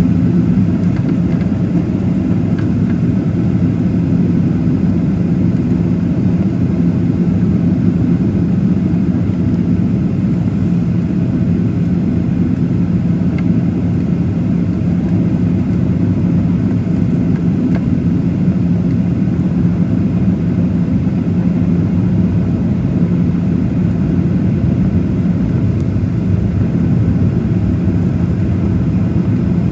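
Steady cabin noise inside a Boeing 737-800 on its approach: the CFM56 engines' drone and rushing airflow, with a steady low hum underneath.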